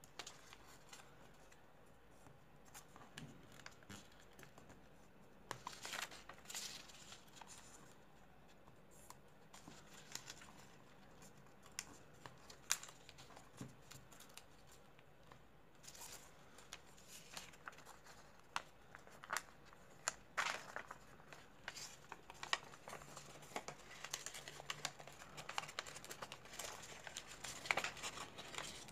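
Sheet of paper being folded and creased by hand: intermittent crinkling and crisp rustles as folds are pressed flat, in short clusters with quiet spells between.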